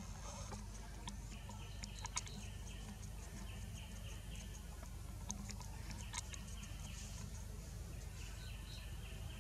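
Forest ambience: a steady low hum under bouts of a fast, pulsing chirp from birds or insects that come and go, with a few sharp clicks and ticks.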